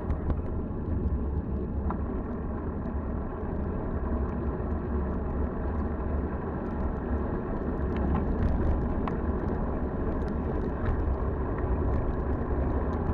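Steady wind and road noise from riding a bicycle in the rain, picked up by an action camera's microphone, with heavy low rumble from wind on the microphone and a few small clicks.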